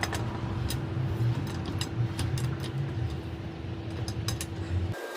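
A machine running with a steady low throbbing rumble and a constant hum, with scattered sharp clicks and ticks over it. It cuts off abruptly near the end.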